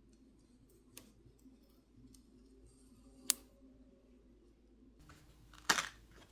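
Plastic pry tools clicking and scraping against a smartphone's glued glass back plate as it is pried off, its adhesive loosened by heat. There are scattered small ticks, one sharp click a few seconds in, and a louder crackling scrape near the end.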